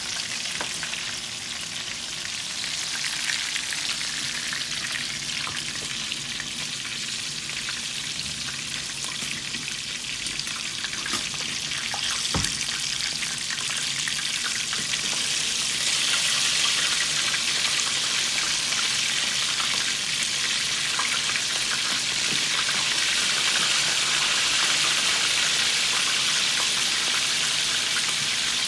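Flour-dredged chicken pieces frying in hot oil in a stainless steel pan: a steady sizzle that gets louder about halfway through. A single sharp knock about twelve seconds in.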